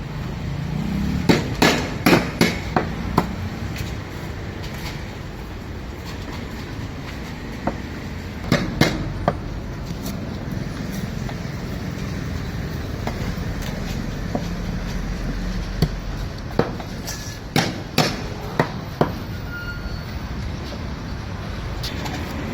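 Several clusters of sharp knocks, two or three a second, over a steady low rumble of traffic.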